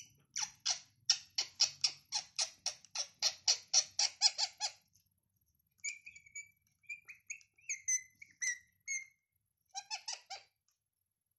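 Pet rose-ringed parakeet giving a fast run of short, sharp chattering calls, about four a second, for several seconds. A few scattered higher chirps and squeaks follow.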